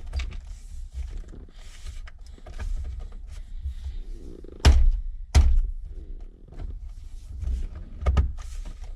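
Plastic trim clips being knocked into place on a steering wheel cover, with scattered light clicks and handling noise. Two loud knocks come about halfway through, and a few smaller ones near the end.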